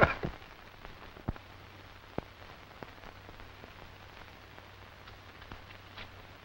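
Old film soundtrack in a pause between lines of dialogue: a steady low hiss and hum, with a few faint clicks and pops, the first two about a second and two seconds in.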